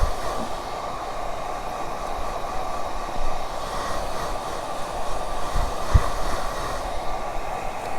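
Handheld hair dryer blowing steadily, drying a layer of wig glue.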